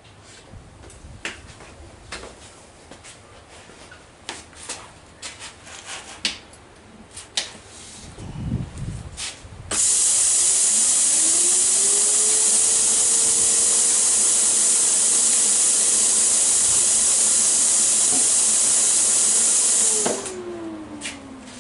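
Plasma cutter's compressed air hissing steadily through the torch with no arc struck, starting sharply about halfway through and cutting off suddenly some ten seconds later. A hum rises in pitch as the air comes on and falls away after it stops. Scattered clicks and knocks come before it.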